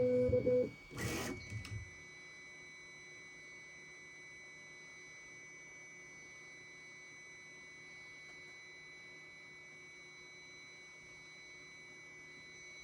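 Bambu Lab A1 3D printer at print start: its stepper motors make short stepped tones for the first second, with a brief burst of noise. Then a steady, high-pitched electronic tone holds, the long beep the owner reports at the start of printing.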